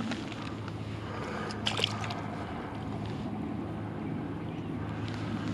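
Steady low motor hum. A short splash comes a little under two seconds in, as a caught bass is let go into the water.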